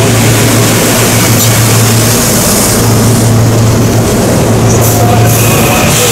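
SEPTA electric multiple-unit commuter train passing close by, with a steady low hum and the rush of its wheels on the rails.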